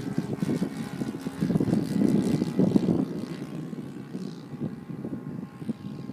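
Engine and propeller of a radio-controlled Yak 54 model aerobatic plane in flight, growing louder about two seconds in and then fading as it flies away.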